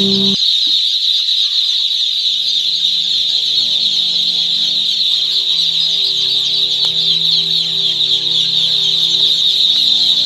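A large flock of ducklings peeping all at once, a dense, continuous high-pitched chorus of overlapping chirps. Soft instrumental music plays faintly underneath.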